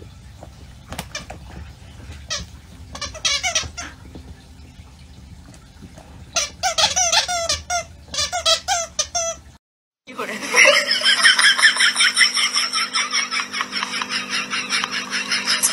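A dog chewing a squeaky toy, setting off a short run of rapid squeaks and then a longer one. Music starts after a brief gap about ten seconds in.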